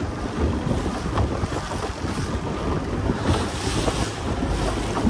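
Small open motorboat under way at sea: wind on the microphone and water rushing and splashing along the hull, with brief louder splashes of spray.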